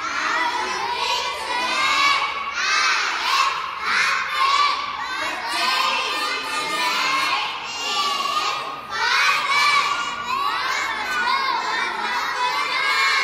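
A group of young children chanting loudly together in unison, in repeated phrases.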